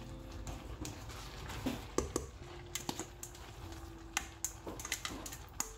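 A plastic spatula scraping cooked rice out of a metal colander into a steel pot, with irregular clicks and knocks as the spatula and colander tap against the pot. A faint steady hum runs underneath.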